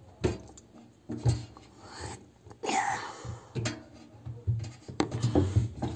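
Irregular knocks and handling noises, roughly one a second, with a brief falling scrape or squeak near the middle.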